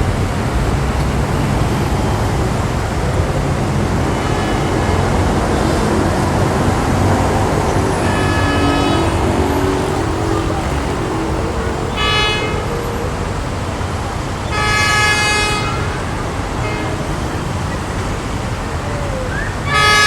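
Diesel railcar train arriving, its engines and wheels giving a steady low rumble, with several short horn toots along the way.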